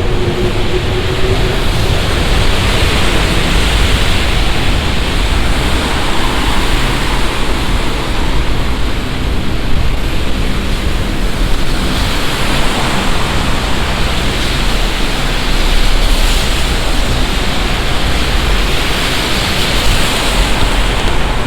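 Heavy summer downpour, a dense, steady hiss of rain that swells and eases a few times.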